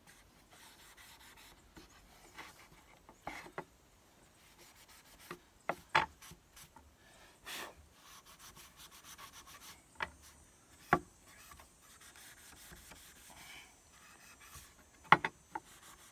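Steel wool scrubbing surface rust off a muzzleloader's barrel rib: a soft, scratchy rubbing that comes and goes. A few sharp knocks stand out, the loudest about six, eleven and fifteen seconds in.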